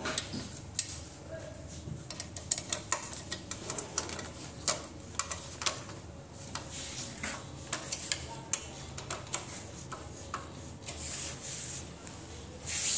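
Two screws being taken out of a spin bike's frame with a hand tool and the water bottle holder fitted in their place: irregular metal clicks, taps and scraping, with ticks of the tool turning.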